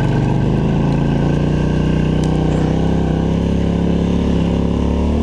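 Polaris Scrambler ATV engine running steadily under load in deep snow, its pitch shifting a little as the throttle changes.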